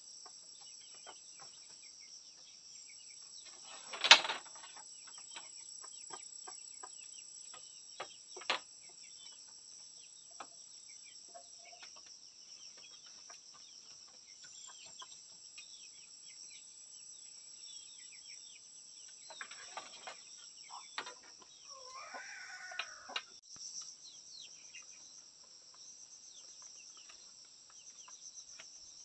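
Steady high-pitched drone of insects, with a hen clucking briefly about three quarters of the way through. Sharp knocks and taps from bamboo slats being handled as the coop wall is built, the loudest a single knock about four seconds in.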